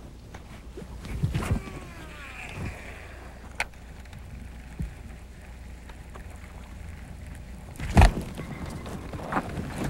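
A rod and fishing reel are cast and worked from a boat deck. About a second in comes a swish and a short whining sweep as line pays out, followed by a few sharp clicks. A loud sharp thump near the end is the loudest sound, all over a steady low rumble.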